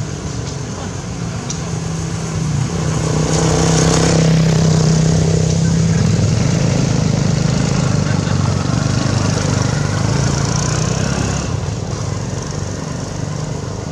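A motor vehicle engine running nearby with a steady low hum, growing louder about three to four seconds in and then slowly fading.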